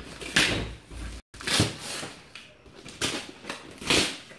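Gift-wrapping paper being torn and pulled off a cardboard box by hand, in four short ripping swishes about a second apart.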